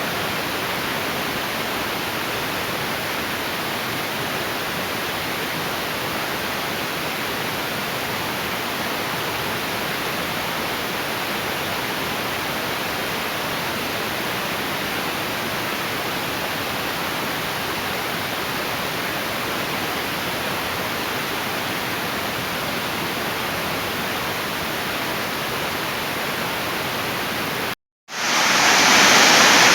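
Heavy storm rain pouring down steadily. Near the end the sound cuts out for a moment and comes back louder and brighter.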